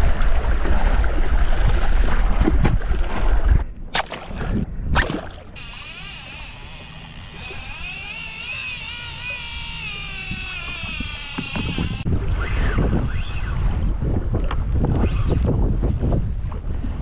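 Wind buffeting the microphone and water noise, then from about five seconds in a fishing reel's drag whines steadily for about six seconds as a hooked fish pulls line off. Wind and water noise follow after it stops suddenly.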